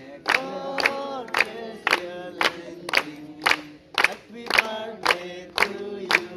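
A group of people singing a birthday song together, clapping in time about twice a second.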